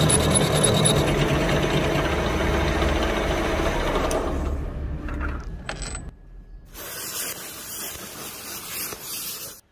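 Metal lathe running with a carbide tool turning down the steel end of a chuck jaw screw, fading out about four to five seconds in. A gas torch flame then hisses from about seven seconds in.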